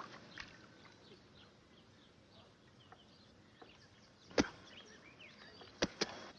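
Faint scattered bird chirps over a quiet outdoor background. A single sharp knock about four seconds in, and two more in quick succession near the end.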